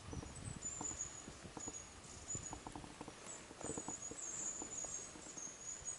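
Faint high-pitched chirping from small wildlife by the river, over a low rumble of wind on the microphone and a few scattered soft clicks.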